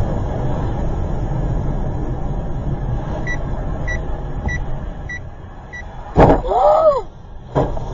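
Car cabin noise on a wet road, with the hazard-light indicator ticking about every 0.6 s in the middle. About six seconds in, a sudden loud thump of a collision, as another car hits this one, with a person crying out; a second knock follows a second later.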